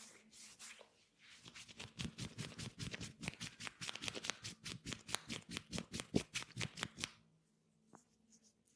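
A masseuse's hands tapping and striking the body in rapid massage percussion (tapotement), several quick slaps a second. The run starts about a second and a half in and stops suddenly about seven seconds in.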